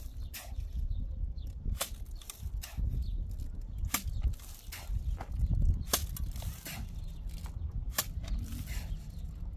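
Sharp, irregular clicks and knocks of hard objects, about a dozen of them and loudest about four and six seconds in, over a steady low rumble.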